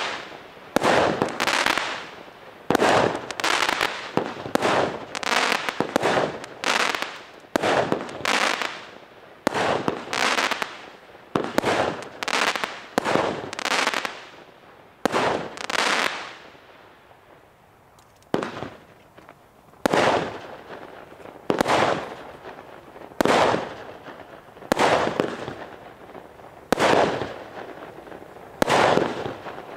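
A consumer firework cake from Vulcan's Soul Crushers assortment firing shot after shot of aerial bursts, about one every second or two. Each burst starts sharply and fades over about a second. There is a brief lull a little past the middle before the shots resume.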